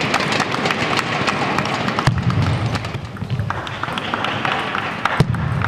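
Spectators in a large hall clapping and chattering between table tennis rallies, with scattered sharp clicks.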